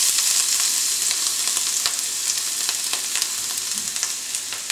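Chopped, soaked porcini mushrooms sizzling in hot olive oil with garlic in a frying pan: a steady hiss with scattered crackles, easing slightly toward the end.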